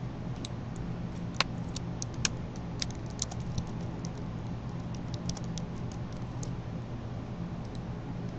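Computer being operated: irregular clicking of plastic keys and buttons, with a few louder clicks, over a steady low hum.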